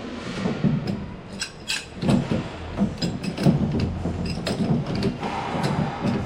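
Irregular clinks, clicks and knocks of hand tools and metal fittings being handled.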